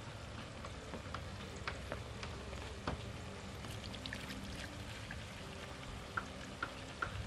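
Light clicks and scrapes of a cleaver cutting into the top of a young green coconut, then coconut water trickling out of the coconut into a plastic jug.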